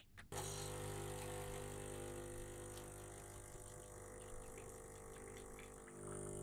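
Xiaomi Scishare capsule espresso machine brewing: a click, then its pump starts about a third of a second in and runs with a steady hum as espresso pours into a glass. The hum dips and changes briefly near the end.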